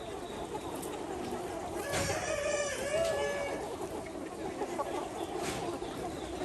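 A Ho chicken rooster crowing once, a single call of about a second and a half, with the flock clucking around it.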